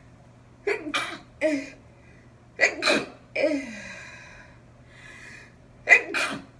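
A woman sneezing three times in a row.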